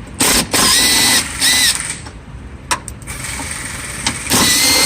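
Power drill/driver with a T30 Torx bit whirring in several short bursts, with a longer run near the end, as it backs out the Hyundai Accent door latch screws.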